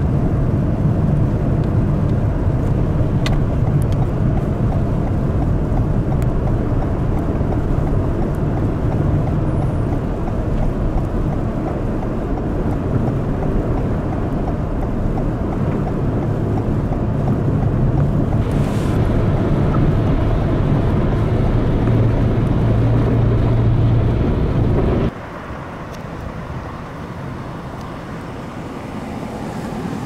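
Steady, loud low rumble of heavy vehicle engine and road noise behind a snowplow truck clearing a snowy highway, with a brief hiss a little after halfway. About 25 seconds in it drops suddenly to quieter traffic noise of cars on a snow-covered street.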